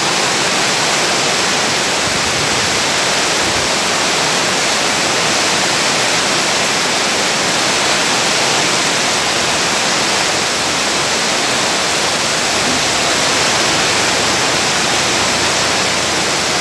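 Heavy rain falling steadily: a loud, even rushing hiss of downpour.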